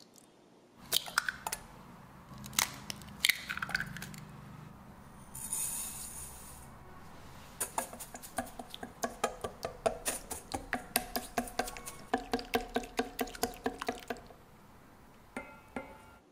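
An egg knocked a few times and cracked open over a stainless steel bowl, then a whisk beating eggs in the steel bowl: a steady run of about four clinks a second with the bowl ringing, stopping about two seconds before the end.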